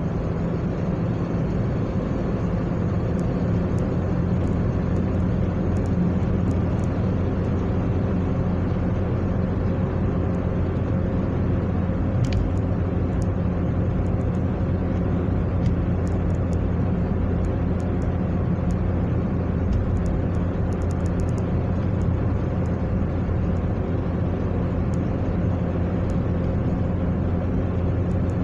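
Steady running noise of a car driving along a road, heard from inside the cabin.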